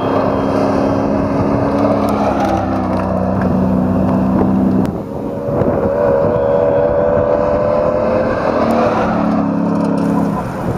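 A GAZ rally truck's engine running hard at speed on a gravel stage, its note steady and loud. About halfway through it drops off briefly, then carries on at a higher pitch.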